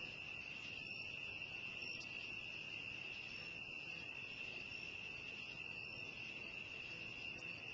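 A chorus of crickets on a summer evening: one steady, unbroken high-pitched trill that does not change.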